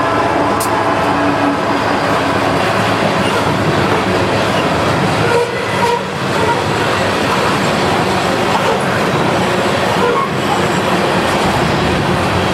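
Freight train passing close by, a long string of covered hopper cars rolling past. Steel wheels rumble and clack over the rails.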